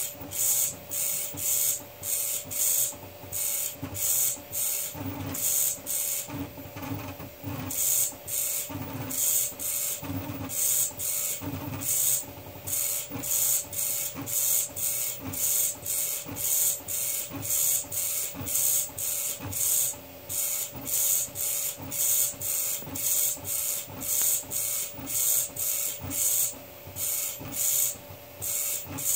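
Home-built pen plotter moving its pen back and forth across paper to fill in a solid area, with rhythmic strokes about twice a second over a steady hum. The strokes pause briefly partway through, then carry on.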